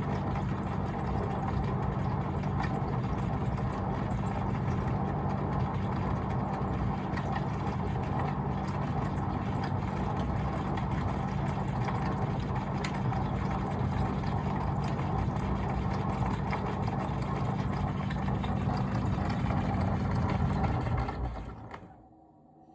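AEG tumble dryer running with a steady hum and low rumble, scattered clicks and knocks throughout: the odd cracking and rumbling noises the owner is complaining about. It winds down and stops about a second before the end.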